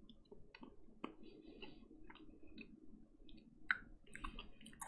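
Quiet chewing of a small chocolate candy, with scattered soft mouth clicks and smacks, the sharpest about three-quarters of the way through and at the very end.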